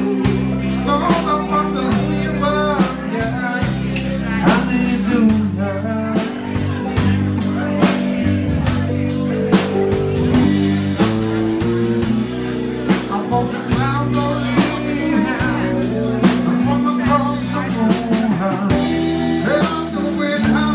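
Live band playing a blues-rock song: electric bass, electric guitars and a drum kit with frequent cymbal strokes, and a melody line bending in pitch over the top.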